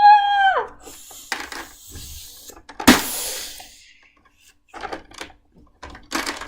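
A child's voice making a short falling "whoo" sound effect. Then toys are knocked and rubbed together, with one sharp hit about three seconds in followed by a hissing rush, and light clicks near the end.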